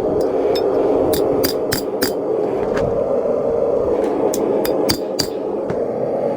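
Hammer tapping a hot 1084 high-carbon steel knife blade on an anvil to straighten it: about ten light ringing metal strikes in two bunches with a pause in the middle. Under them runs the steady rush of the gas forge's burner.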